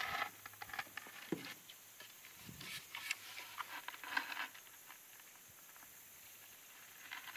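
Faint scattered taps, scrapes and rustling from a wooden canoe paddle prodding around a log and creek stones, with short bursts of rustle about three and four seconds in, then quieter.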